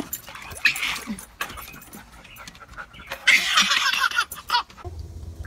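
A dog snuffling at a ball in a shallow kiddie pool, in two noisy bursts: a short one about half a second in and a longer one from about three seconds in.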